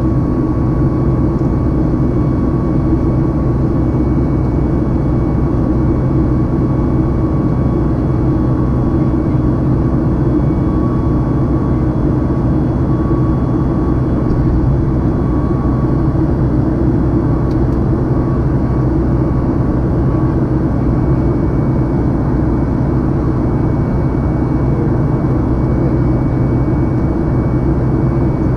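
Steady cabin drone of a Boeing 737 MAX in flight, heard from a window seat over the wing, with a faint steady high whine from its CFM LEAP-1B turbofan engines.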